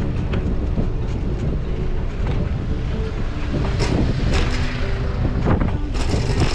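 Wind buffeting the microphone of a bicycle-mounted action camera while riding, a steady low rumble, with a few sharp clicks about four seconds in and near the end.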